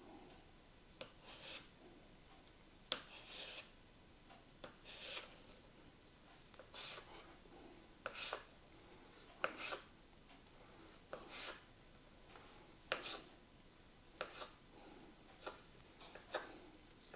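Faint, repeated short scraping strokes of a kitchen knife on a cutting board, about one every second or so, as ingredients for okroshka are cut.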